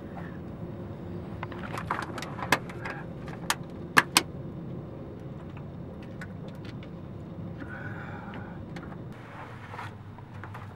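A few sharp clicks and a light rattle of a plastic pill bottle being handled and tablets shaken out, over a steady low background noise. The loudest pair of clicks comes about four seconds in.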